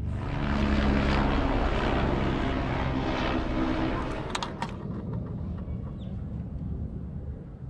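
Engine rumble passing by: a low hum and hiss that swells about a second in and fades over the next few seconds. A few sharp clicks come about four and a half seconds in.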